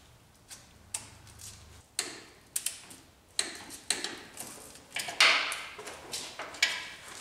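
Ratcheting torque wrench clicking in short runs as the steering-shaft U-joint bolts are tightened to 26 ft-lbs, with one louder sharp click about five seconds in.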